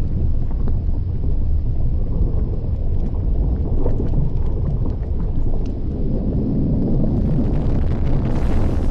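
Volcanic crater vent giving off a steady low rumble, with wind buffeting the microphone and scattered faint crackles.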